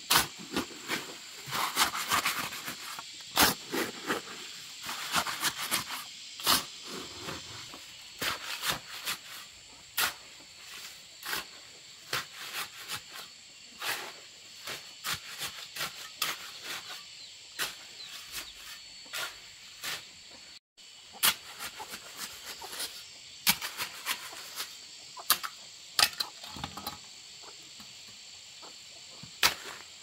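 Irregular sharp knocks, clicks and scrapes of hands-on outdoor work, over a steady high-pitched insect drone.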